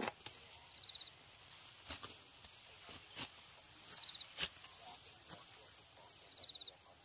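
Ripe rice stalks being cut and bundled by hand, giving scattered crisp snips and rustles. A short, rapid, high chirping trill sounds three times, about every three seconds, over faint steady high insect-like ticking.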